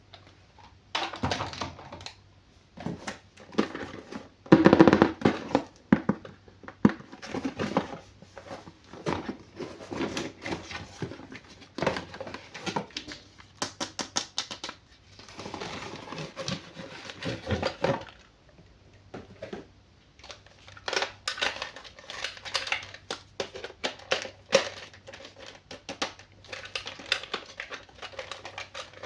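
Toys and their plastic packaging being handled and unpacked: irregular clicks, taps and crinkling, with a longer stretch of rustling about halfway through.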